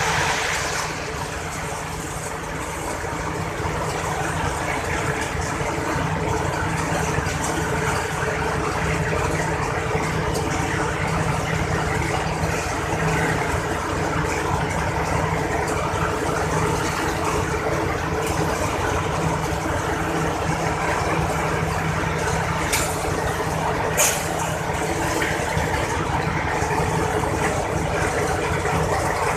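Machine engine running steadily at a construction site, with two sharp clicks about three quarters of the way through.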